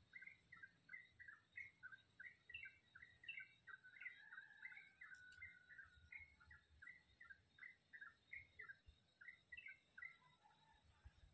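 Faint songbird chirping: a quick, steady run of short high notes, about three a second.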